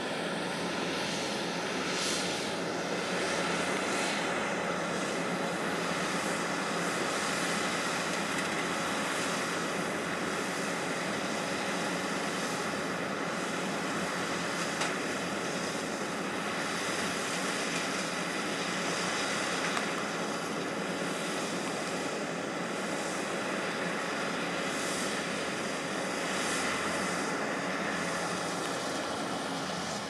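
JCB Fastrac tractor's diesel engine running steadily under load, pulling a Kuhn VB 2160 round baler that is picking up and baling hay, the two machines' noise blending into one even drone.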